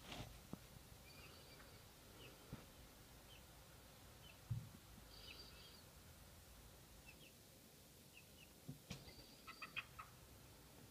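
Young chickens peeping faintly in short, scattered chirps, which come thicker near the end. There is a soft low knock about four and a half seconds in.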